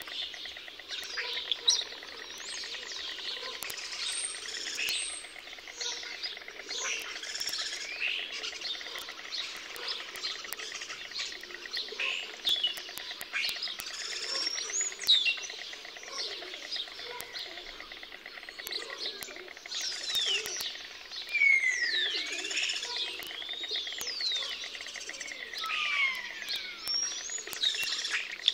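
A dense chorus of many small birds chirping and whistling at once, with several clear whistles sliding down in pitch in the second half.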